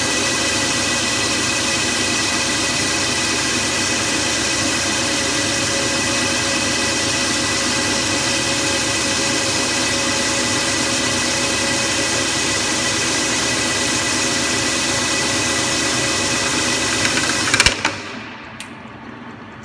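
Automatic swan-neck faucet pipe polishing machine running steadily: a dense mechanical noise with steady whining tones. A little before the end come a couple of sharp clunks, and the machine stops, leaving a much quieter background.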